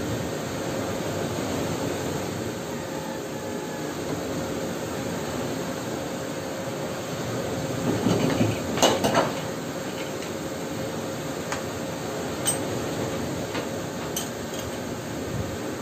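A steady mechanical hum and rumble with a steady tone in it, over which metal parts and tools clink as they are handled: a louder cluster of clinks about halfway through and a few single clicks later.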